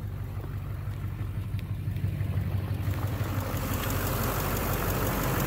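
A 2009 Chevrolet Duramax LMM 6.6 L turbodiesel V8 idles steadily in park, with no load from the transmission; in park the bottom-end knock it makes under load in gear is gone. A hiss grows louder about halfway through.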